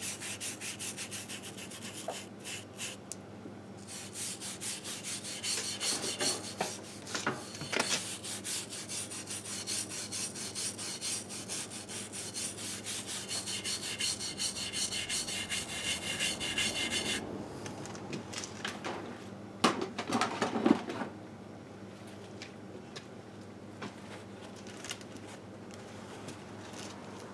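A brush is scrubbing grime off a bare aluminium motorcycle engine case in a fast run of scratchy strokes, which stops about two-thirds of the way through. A few short knocks follow as tools are handled.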